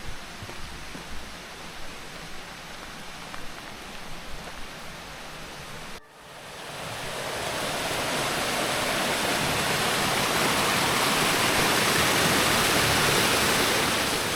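Rushing mountain water: a loud, even noise that starts at a cut about six seconds in and swells, then holds steady. Before it there is a quieter outdoor hiss with a few light knocks.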